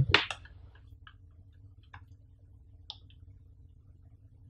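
A plastic power bank being gripped and lifted by hand: a loud cluster of knocks and scrapes right at the start, then a few light clicks about a second apart as it is turned in the hand, over a faint steady low hum.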